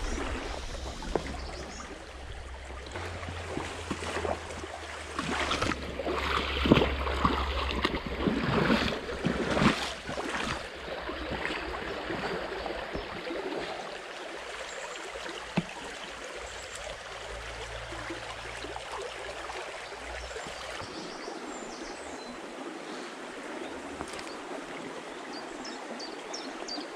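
Shallow stream running and trickling steadily over its bed, with a few louder swells of noise between about five and ten seconds in.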